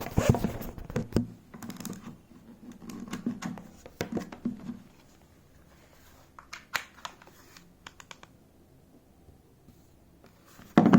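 Light clicks, taps and scraping from handling a smartwatch and its plastic charging cradle while seating the watch to charge. The clicks are thickest in the first second or so, then come sparser.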